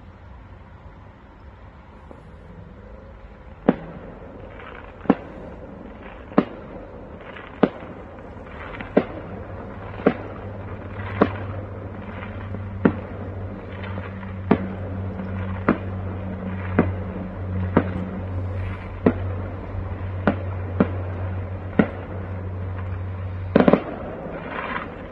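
Fireworks going off: a string of sharp bangs starting about four seconds in, roughly one every second or so, many followed by a crackle, and a quick cluster of bangs near the end. A low steady hum runs underneath through much of it.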